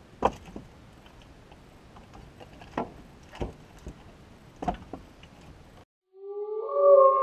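Pieces of split firewood knocking against each other as they are stacked: a few sharp wooden knocks spread over about five seconds. Then the sound cuts off, and sustained music tones begin near the end.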